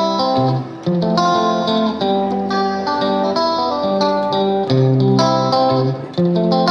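Instrumental intro music: plucked guitar notes played in a quick, even rhythm.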